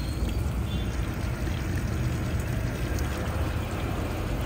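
Chicken and onions sizzling and bubbling in a clay handi over a wood fire, a steady hiss over a continuous low rumble.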